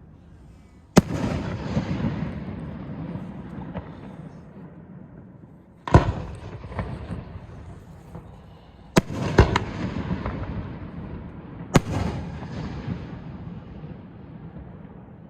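Aerial fireworks shells bursting: five sharp bangs, two of them close together, each followed by a long rolling rumble that slowly dies away.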